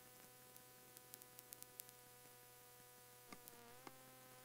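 Near silence: a faint steady hum in the recording, with a few faint clicks.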